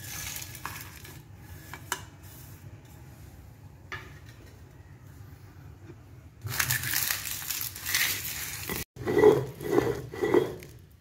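Sambar masala being ground on an ammikkal, a stone grinding slab with a stone roller. First a few light clicks as the roasted spices and dried red chillies land on the stone. From about six seconds in, the roller scrapes and crushes them, and the stretch ends in three heavier back-and-forth strokes over the wet paste.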